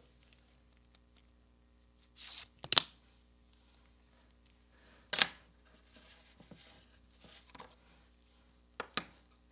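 Starrett steel rule handled on a bench: a few sharp clicks and knocks as it is laid down and picked up, with soft rustling between. There is a swish and a loud click a little under three seconds in, another click about five seconds in, and a quick double click near the end.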